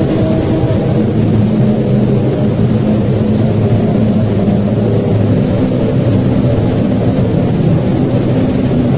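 A loud, steady low rumble with a drone of sustained low tones running under it.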